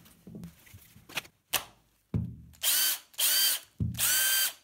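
A Bosch 18V cordless impact driver's motor runs unloaded in three short trigger pulls, each spinning up quickly to a steady whine and stopping, powered by the repaired NiMH battery pack. Before the runs come light handling clicks and a thump as the pack is fitted.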